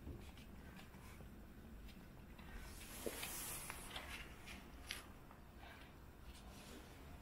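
Several cats eating from plastic plates: faint scattered clicks and chewing sounds, with a brief hissing rustle about three seconds in.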